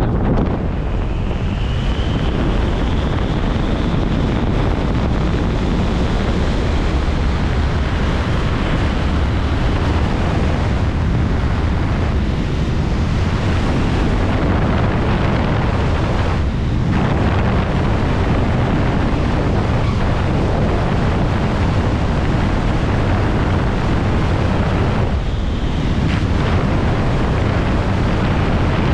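Steady, heavy wind buffeting the microphone, a constant low rumbling rush.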